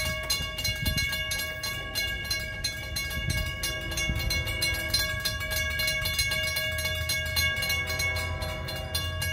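Railroad grade-crossing warning bell ringing in a rapid, even, ringing pattern while the crossing signals flash and the gates lower. A low rumble runs underneath and grows toward the end.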